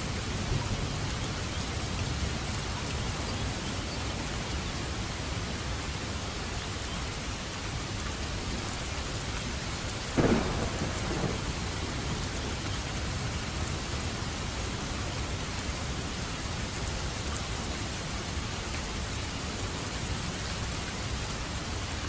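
Steady rain falling. About ten seconds in, a sudden loud crash stands out, with a smaller one a second later.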